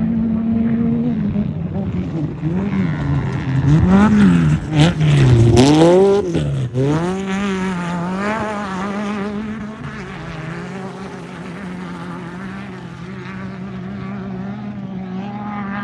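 Off-road race vehicle's engine revving up and down over and over as it passes close, loudest a few seconds in, then fading away. A steady engine hum runs underneath.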